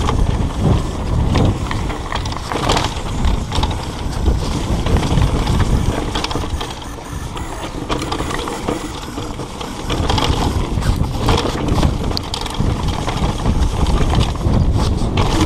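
Mountain bike descending a dirt trail: the bike rattles and clicks over the bumps, with the rear hub's freehub ratcheting while coasting and the tyres rumbling on the dirt. It eases off for a few seconds in the middle, then gets busier again.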